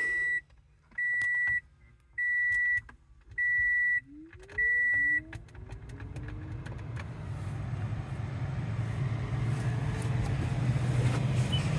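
The vehicle's warning chime beeps five times, then the freshly replaced blower motor of a 2018 Toyota Sienna spins up with a rising whine and settles into a steady, growing rush of air, with no grinding: the new motor has cured the grinding noise.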